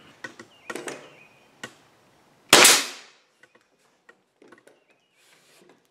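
Bostitch pneumatic nailer driving a 16-gauge brad into a plywood side panel: one loud, sharp shot about two and a half seconds in, dying away over half a second. A few light knocks come before it.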